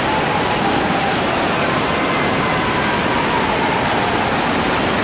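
Steady loud rush of pouring and splashing water from waterpark water features, an even roar with no breaks.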